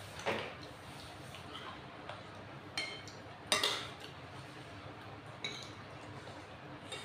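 A few scattered clinks of metal spoons against ceramic soup bowls, one with a short ring, over a quiet background.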